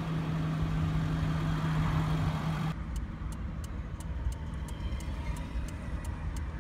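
Car engine idling, heard from inside the cabin as a steady low hum. From about three seconds in, the turn-signal flasher ticks evenly several times a second.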